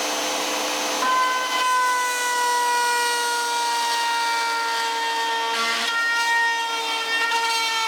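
Router in a router table running at speed while a V-groove bit cuts into a wooden rod turned against it. About a second in, a higher whine starts as the bit bites into the wood, then drifts slowly lower in pitch under the load.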